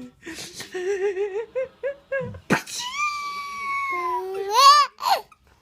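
Baby laughing and squealing: a run of quick laughing pulses, then a long high held squeal and a rising, shrieking squeal near the end. A short sharp burst of noise comes about two and a half seconds in.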